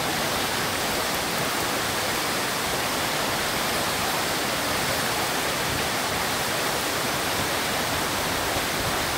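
Tall waterfall: a steady, even rush of falling water.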